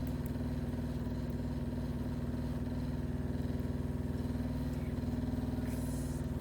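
Home cotton candy maker running: its electric motor spins the heated sugar head with a steady hum and a fast, even rattle, as the melted sugar spins out into floss.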